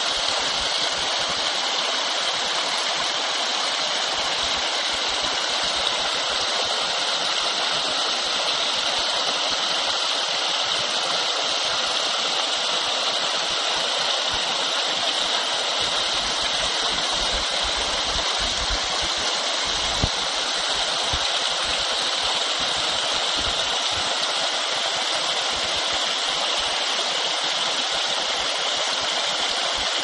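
Small waterfall on a creek, water spilling in thin jets over mossy limestone and tufa ledges and splashing below: a steady, even hissing rush.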